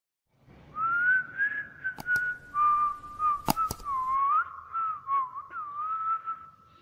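A whistled tune, one gliding melody line, with two quick pairs of sharp clicks partway through, like the mouse clicks of an animated subscribe-button outro.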